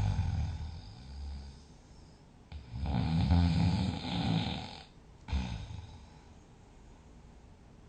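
A sleeping person snoring. One snore tails off at the start, and a long, loud snore runs from about two and a half to five seconds in. A short burst follows just after, and then only quiet breathing remains.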